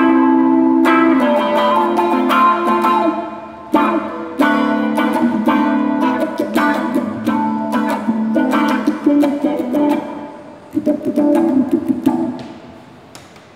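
Electric guitar played through a Zoom GFX-4 multi-effects processor: a run of picked notes and strummed chords that ring on, the playing thinning out and dying away near the end.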